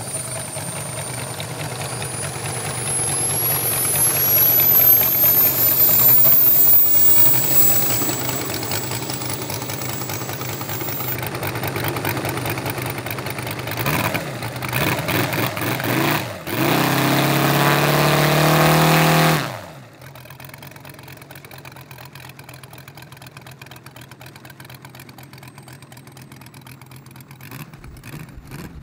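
Engine of a large-scale radio-controlled Focke-Wulf Fw 190 model running on the ground with its propeller turning, revved up several times, then shut off suddenly about twenty seconds in, leaving a quieter steady background hiss.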